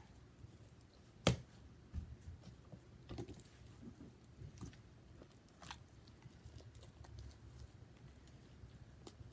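Slime being kneaded and stretched by hand as activator is worked in: faint sticky squishes and crackles, with a few sharp pops, the loudest about a second in.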